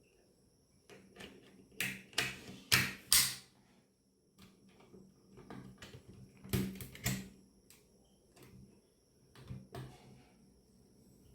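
Clicks and knocks from handling a tripod stand and its parts, coming in three short clusters, the loudest two to three seconds in, with light rustling between.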